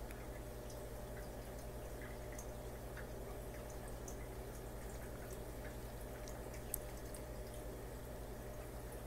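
Steady aquarium hum with faint water dripping and small scattered ticks, and one sharper click about two-thirds of the way through.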